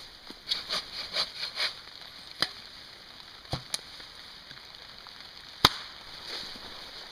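A wooden stick beating at a smouldering stump, giving scattered sharp knocks and cracks. The loudest crack comes a little past the middle, after a quick run of smaller clatters near the start.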